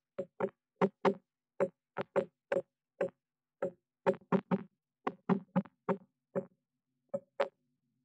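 A woodpecker pecking at the wooden nest box, heard from inside the box: a long run of single sharp knocks at an uneven pace of about two to three a second, not a drumming roll, ending about 7.5 seconds in.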